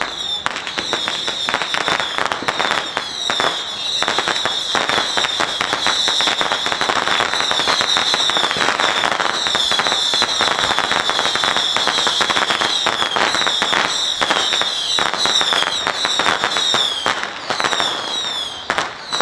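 Strings of firecrackers going off in a continuous, dense rapid crackle. A high-pitched falling chirp repeats over it throughout.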